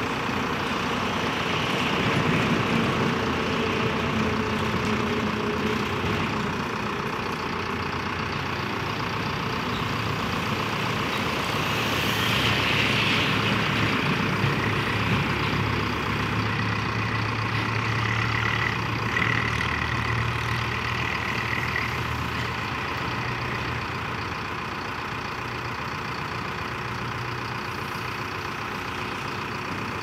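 Manitou Ranger backhoe loader's diesel engine running steadily, its sound swelling and easing as the hydraulics hold and shift the machine on its bucket and stabilisers. A higher steady whine joins in for a few seconds past the middle.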